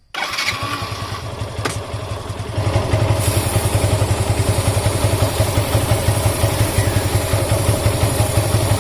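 Yamaha FZ's single-cylinder engine starting and running with a steady pulsing note. It gets louder about two and a half seconds in, while the bike runs in first gear with the rear wheel and chain turning. A steady high hiss joins about three seconds in, which fits chain lube being sprayed onto the moving chain.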